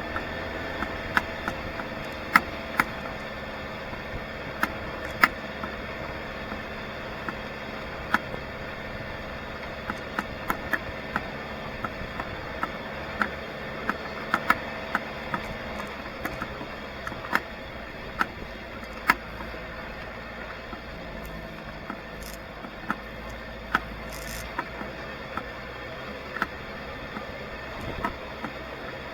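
A vehicle engine running steadily, with sharp clicks and knocks coming irregularly about once a second over it.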